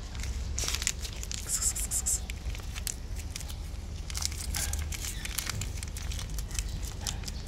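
Plastic foil Kitekat wet-cat-food pouch being torn and crinkled as the food is squeezed out, in two spells of sharp crackling: the first about half a second in, the second about four seconds in.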